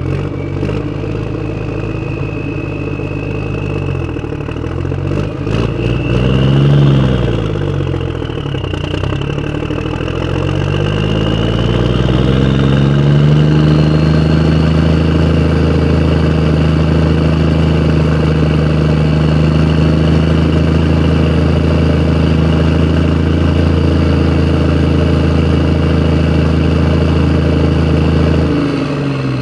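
Motor vehicle engine running, its pitch rising and falling with the revs over the first several seconds, then climbing to a steady higher pitch that holds for about fifteen seconds before dropping near the end. A few clicks come in the first six seconds.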